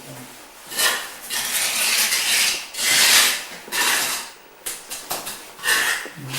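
A series of rough scraping strokes, about one a second, each lasting close to a second.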